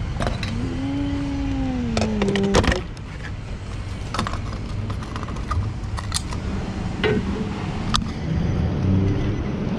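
Handling at a car's fuel filler: the last of a bottle of fuel injector cleaner pours in, then the fuel cap is screwed shut with several sharp clicks. A steady low rumble runs underneath.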